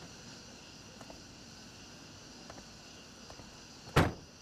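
A car door shut once with a solid thump about four seconds in, over a faint steady background hiss.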